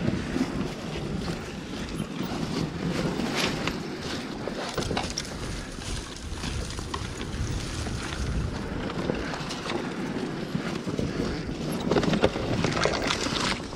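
Dirt bike engine running at low revs under wind buffeting on the microphone, with scattered knocks and brush scraping as the bike picks its way down a steep, rough trail.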